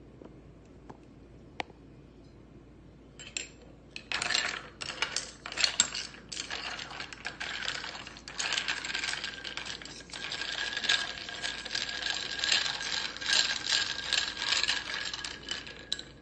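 A long metal spoon stirring iced coffee in a tall glass: ice cubes and spoon clink and rattle against the glass, which rings faintly. The stirring starts about four seconds in and stops near the end, after a couple of single clicks.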